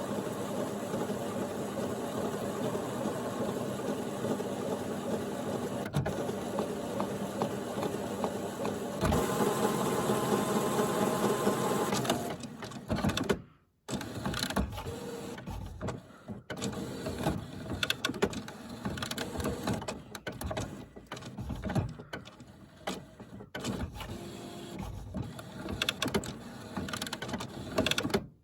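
HP Photosmart Plus printer's motors and gears running with a steady whir that grows louder, then stopping briefly before a stretch of irregular clicks, whirs and clunks. These are noises the owner finds odd.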